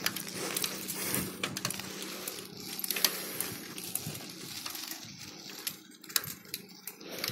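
Bicycle rattling over a rough road: irregular sharp clicks and ticks over a steady hiss of riding noise.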